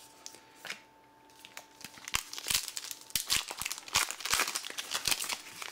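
Foil trading-card pack wrapper being torn open and crinkled by hand, a dense run of sharp crackles starting about two seconds in.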